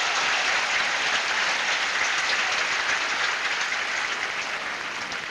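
Tennis crowd applauding, a dense patter of many hands clapping that slowly dies away over the last couple of seconds.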